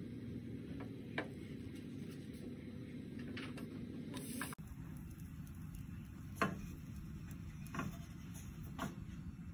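Steady low cooking hiss from a pancake in a nonstick frying pan, with a few light clicks and scrapes as a silicone spatula slides under the pancake and turns it, once about a second in and several times in the second half.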